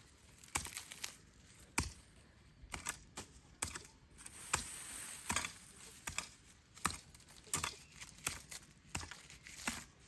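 Irregular sharp clicks and knocks, one or two a second, with a short rustling noise about four seconds in.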